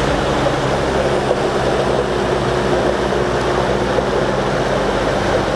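Electric box fans running: a steady rush of air with a constant low motor hum.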